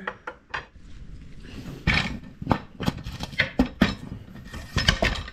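A 3/4-inch metal axle rod being pushed through the drilled holes of a floor jack's side plates, with a phenolic caster wheel slipped onto it: a run of irregular metal clanks and knocks with light scraping between them.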